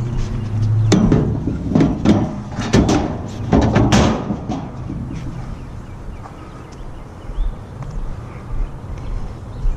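A run of sharp knocks and clatters, about a dozen over three or four seconds starting about a second in, over a low vehicle hum that eases off after them.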